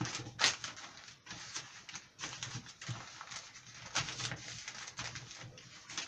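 Newspaper sheets rustling and crinkling as they are folded and smoothed by hand, with sharper crackles about half a second in and again about four seconds in.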